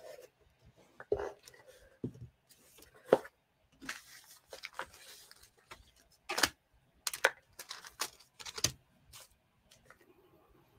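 Unpacking noises: a cardboard knife box and its packaging being slid, rustled and handled, with a string of sharp clicks and knocks as the box and other small items are set down on a table.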